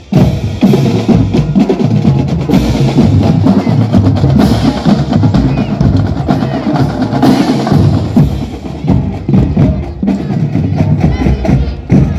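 Marching band drumline playing a steady cadence on snare and bass drums.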